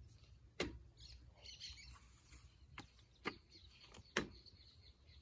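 Four sharp knocks at uneven intervals, with faint bird chirps in between.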